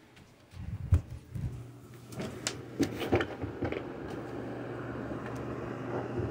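Several light knocks and clicks over a steady low hum that sets in about a second in.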